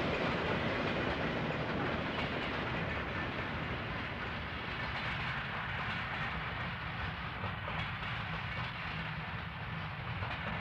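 A train rolling past: railroad cars' steel wheels on rail make a steady rumble with some clatter, easing a little near the end.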